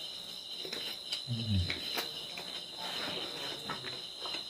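Mouth sounds of a man eating pork with his fingers: soft wet chewing and smacking clicks, with a short low hum from his throat about a second and a half in. Crickets chirp steadily behind.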